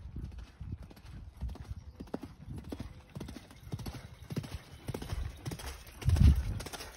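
Horse hoofbeats on a sandy arena: irregular dull thuds of hooves at a walk, with a brief loud low rumble about six seconds in.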